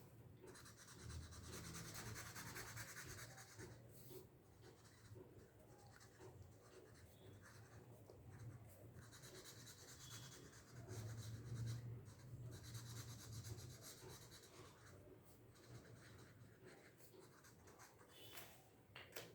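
Faint scratching and rubbing of a felt-tip marker colouring on paper, in uneven back-and-forth strokes.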